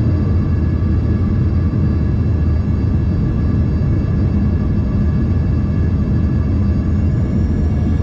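Cabin noise of an Embraer ERJ-145 in flight: a steady deep rumble with the whine of its rear-mounted Rolls-Royce AE 3007 turbofan engines. Near the end the highest whine rises slightly in pitch.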